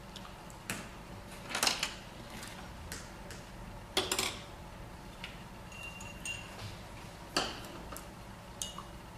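Scattered light clinks and taps of watercolour painting gear against hard dishware, several at irregular spacing. The loudest come about a second and a half and four seconds in, and one near six seconds leaves a brief thin ringing tone.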